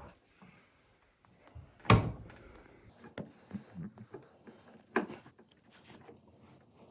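Two sharp knocks, the louder about two seconds in and another about five seconds in, with light clicks and taps between them: a screwdriver and hands working on the mounting screws of light switches in a wall box.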